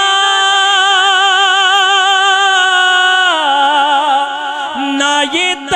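A man's solo voice singing a naat, holding one long note for about three seconds, then stepping down in pitch into shorter notes.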